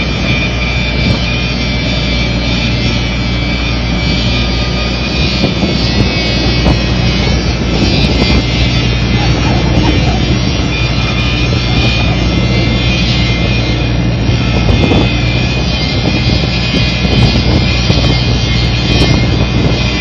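Volvo EW55B wheeled excavator's diesel engine running steadily as the machine drives and turns on its wheels, with a thin high whine over the engine note.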